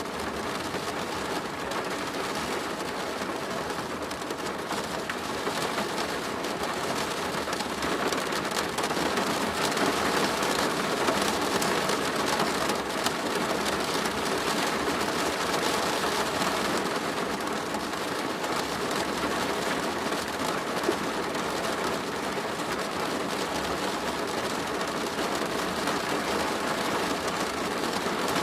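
Steady rain drumming on a plastic roof, a dense patter of drops that grows a little heavier partway through.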